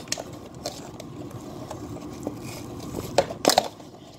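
Small cardboard toy box being opened by hand: scattered clicks and scrapes of cardboard and paper packaging, with a louder cluster of crinkles and snaps about three and a half seconds in.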